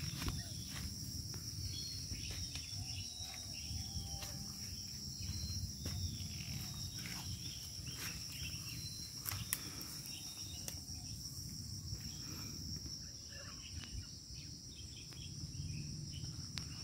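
Insects droning in one steady high-pitched tone, with scattered footsteps and rustling in dry undergrowth and a low rumble underneath.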